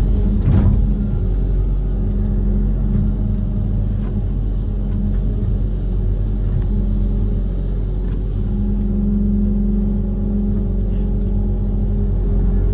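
Diesel engine of a Kobelco SK130 amphibious excavator running steadily with a low rumble, a single sharp knock sounding about half a second in.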